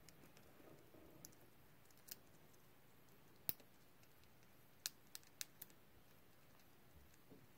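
Hamster cracking and nibbling a seed husk with its teeth: a few small, sharp clicks. The loudest comes about three and a half seconds in, and a quick run of four follows about five seconds in.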